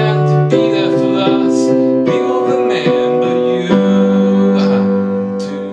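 A digital keyboard in a piano voice plays slow, sustained chords that change every second or so, settling on a deeper chord about two thirds of the way in, with a male voice singing over it. The sound eases off near the end.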